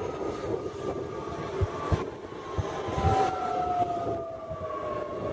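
Queensland Rail electric multiple-unit train passing and pulling away: a steady rumble of wheels on rails, with several dull thumps as the wheels cross the track, and a high electric whine that falls slowly in pitch.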